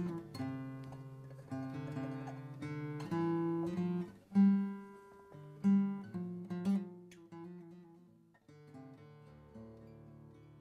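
Background music: acoustic guitar playing plucked notes and strums, growing quieter over the last couple of seconds.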